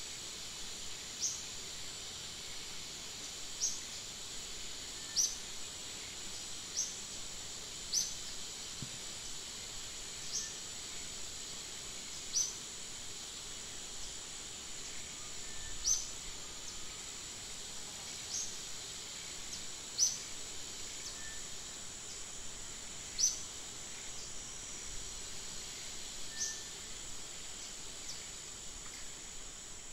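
Forest ambience: a steady, high insect drone, with a bird's short, high chirps falling in pitch, repeated every second or two.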